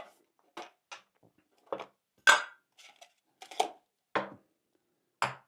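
A lightweight metal camping pot, its lid and the stove parts packed inside being unpacked and set down on a wooden table: a series of short, separate clinks and knocks, the loudest a little over two seconds in.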